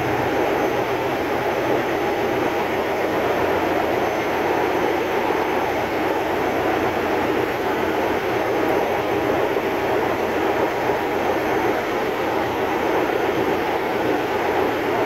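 Steady, loud drone of running diesel generator machinery in a ship's engine room.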